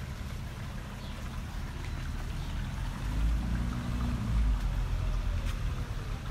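Low outdoor rumble with a distant vehicle passing: its low hum swells about three seconds in and fades about a second and a half later.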